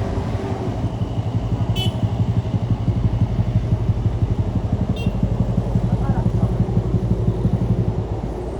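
A motor vehicle's engine running hard up a steep climb, a loud low drone with a fast even pulse that eases off near the end. Two very short high chirps come about two and five seconds in.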